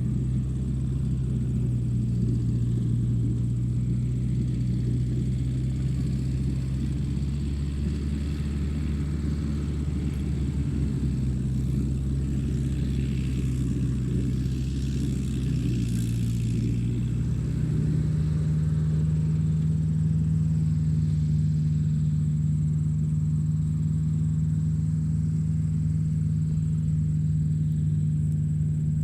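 Tractor engine running steadily. A little past halfway its pitch steps up to a slightly higher engine speed and holds there.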